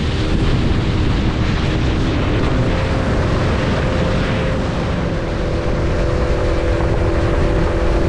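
Boat motor running under way, its steady engine tone shifting a little in pitch partway through, under heavy wind buffeting the microphone.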